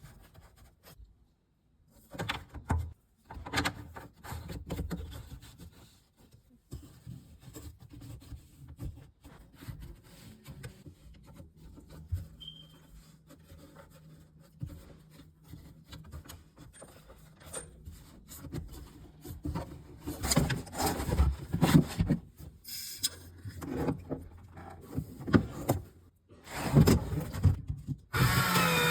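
Plumbing fittings and tools being handled and fitted by hand: irregular rubbing and scraping with scattered knocks and clicks, louder from about twenty seconds in.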